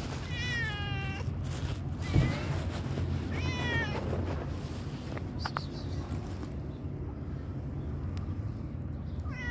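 Pregnant tabby-and-white stray cat meowing: three meows in the first four seconds, the first falling in pitch and the second short, then another meow near the end. A steady low hum runs underneath.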